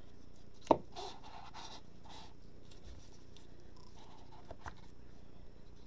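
Trading cards and packaging handled by gloved hands: one sharp click a little under a second in, then soft rustling and scraping, and a few light clicks later.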